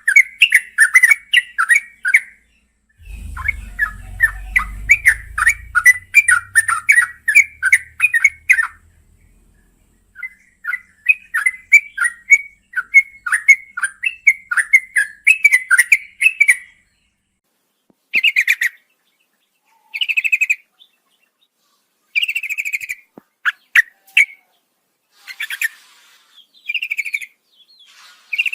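Yellow-vented bulbul (trucukan) singing long runs of rapid chattering notes, several a second, broken by short pauses. In the second half the song turns to shorter, separate phrases. A faint low rumble sits under the song for a few seconds near the start.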